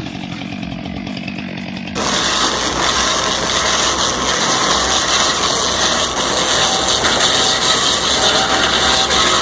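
Power saw running hard through wood. The sound jumps abruptly louder about two seconds in and then stays steady.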